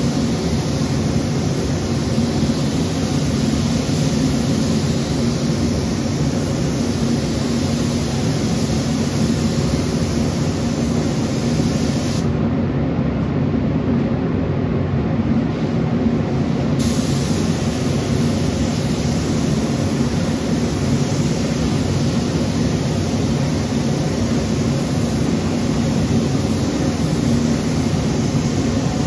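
Compressed-air spray gun hissing as it lays on 2K primer, over a steady low rumble of the spray booth's ventilation. The spraying hiss stops for about four seconds near the middle while the rumble carries on, then starts again.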